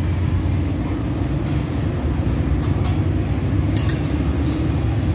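Steady low rumble of road traffic. About four seconds in, a metal spoon clinks briefly against a ceramic bowl of rice porridge.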